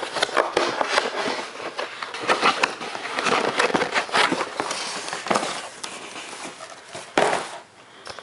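Cardboard shipping box being torn open and handled by hand: a busy run of scraping, crackling and tearing, with one louder rip about seven seconds in, dying down near the end.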